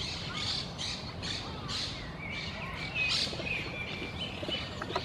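Birds chirping: a quick series of short high chirps, a few a second, then several thin whistled notes midway.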